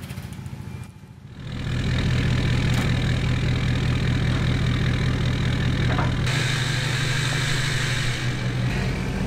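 Pickup truck engine running steadily at low speed. It comes in strongly about a second and a half in, with a hiss joining in the upper range for a couple of seconds near the end.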